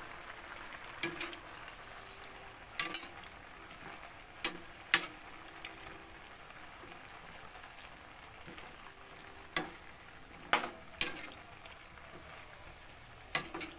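Metal spatula stirring vegetables in a metal wok, knocking against the pan about eight times at uneven intervals over a steady hiss of the vegetables cooking in the hot liquid.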